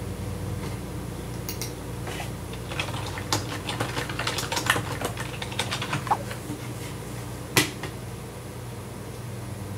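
Typing on a computer keyboard: irregular, quick key clicks over a steady low hum, with one louder, sharper click about seven and a half seconds in.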